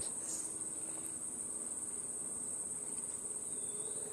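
Insect chorus in dense tropical vegetation: a single steady, high-pitched trill that never breaks.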